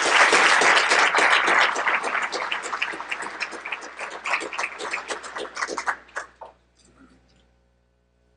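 Audience applauding: many hands clapping, loudest at first and thinning out until it dies away about seven seconds in.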